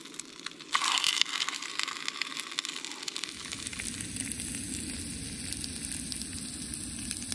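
Trout frying in a small camp pan: a steady crackling sizzle that swells loudly about a second in and then settles.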